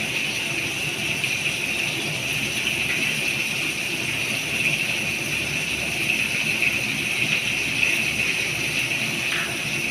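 Potato pieces frying in hot oil in a kadai: a steady sizzle.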